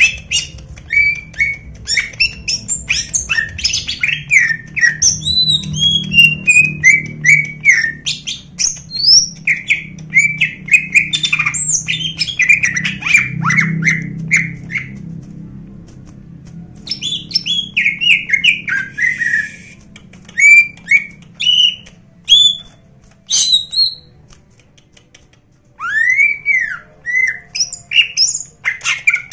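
Green leafbird (cucak ijo) singing a long, fast run of harsh, insistent chirps and whistled phrases, many notes sliding down in pitch, with a couple of short breaks in the second half.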